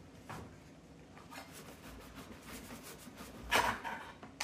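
Knife sawing through garlic bread: a run of soft scraping strokes, then a louder scrape about three and a half seconds in.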